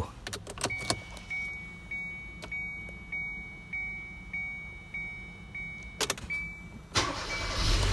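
A 2015 Kia Soul being started after its snapped IG2 fuse was replaced. First a few clicks from the key and switches, then an electronic chime beeps about every 0.6 s for some six seconds. Near the end the engine starts and runs.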